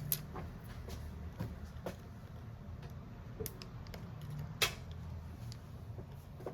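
Scattered light clicks and taps of small tools and parts handled at a repair bench, the sharpest about four and a half seconds in, over a low steady hum.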